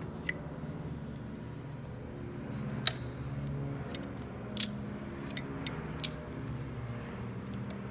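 Metal gearbox parts and tools clinking sharply a few times as they are handled, the loudest about halfway through, over a steady low hum.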